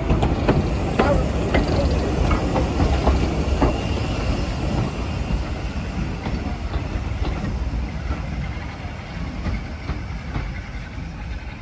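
Passenger train running past, its wheels clicking over the rail joints in quick irregular clacks over a low rumble, the sound fading slowly as the train draws away.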